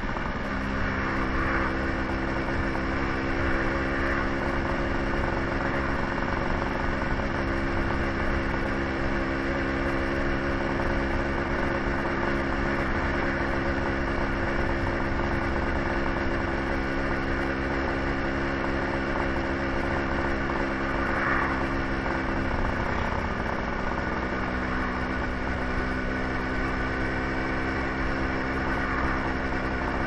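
Suzuki scooter's small engine running steadily while riding, mixed with wind and road noise. A little over two-thirds through, the engine note shifts briefly and then steadies again.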